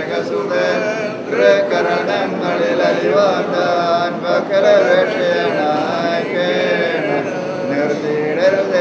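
Voices chanting a sung prayer, the notes held and bending without a break.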